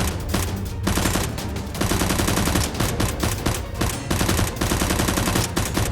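Bursts of rapid automatic gunfire, shot after shot in quick succession.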